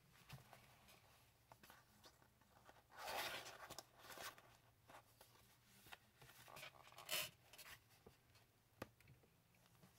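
Soft rustling and sliding of cardstock and paper as a handmade junk journal's pages are turned and a tag is slid in and out of an envelope pocket. It comes in two louder spells, with a sharp tap near the end.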